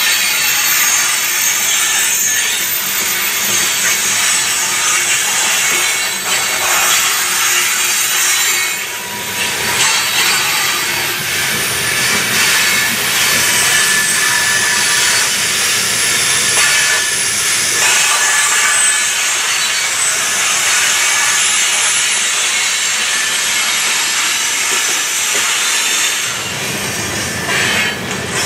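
Train rolling past close by: a loud, steady hiss and rumble of steel wheels on the rails, with faint squealing tones at times.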